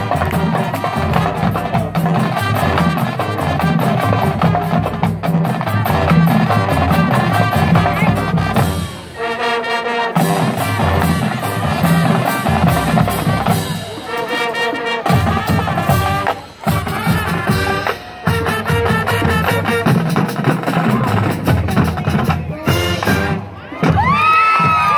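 High school marching band playing: brass over a drumline's steady beat, the music dropping out for a moment a few times.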